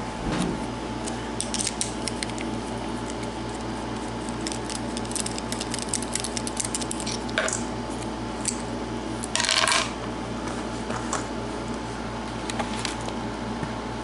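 Small metal clicks and scrapes of a brass padlock being taken apart by hand, the lock's plug and parts coming out and being set down, with a short louder metallic rattle about nine and a half seconds in. A steady low hum runs underneath.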